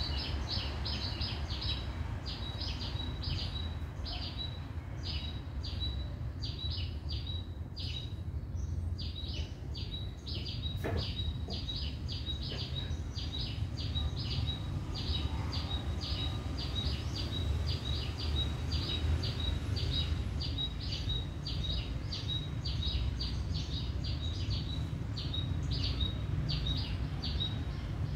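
A bird chirping over and over, about two to three short high chirps a second, breaking off for a couple of seconds about a third of the way in, over a steady low rumble. A single sharp click comes during the break.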